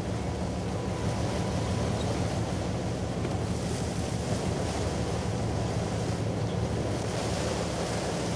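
Wind rushing over the microphone above a steady low drone, the distant engines of the icebreaker CCGS Edward Cornwallis as it moves through the ice.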